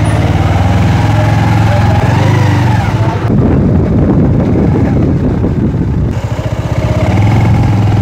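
Motorcycle engine running as the bike pulls away, its note rising. From about three seconds in it gives way to a rougher, uneven rumble of riding, and the steady engine note comes back near the end.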